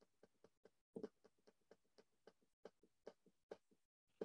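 Faint, evenly spaced clicks, about four a second: a computer mouse's scroll wheel turning notch by notch while scrolling down a document.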